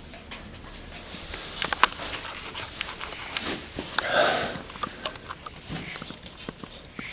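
Samoyed puppies sniffing and scuffling about, with many small clicks and rustles and one louder breathy rush about four seconds in.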